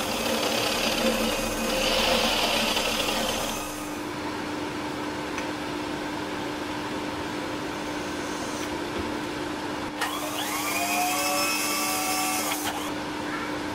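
Milling machine at work: a tap cutting threads in a cast metal plate makes a loud, noisy cutting sound that ends about four seconds in. After that the machine hums steadily. About ten seconds in there is a click, then a whine that rises in pitch and holds for a couple of seconds before stopping.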